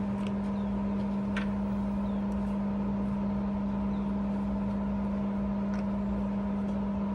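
Steady low mechanical hum with a strong constant tone, and a few faint clicks.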